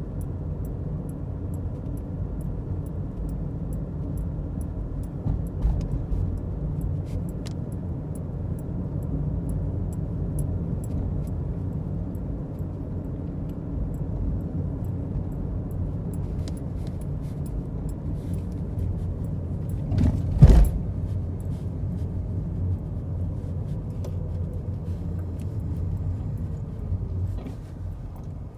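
Steady low rumble of a car on the move, with faint scattered ticks and rattles and one sharp knock about 20 seconds in.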